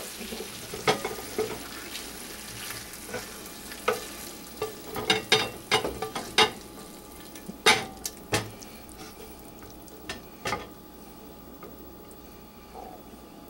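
A cooking utensil knocking and clinking irregularly against a frying pan as sauce-glazed chicken wings are lifted out to plate them, over a sizzle from the pan that fades away. The knocks thin out in the last couple of seconds.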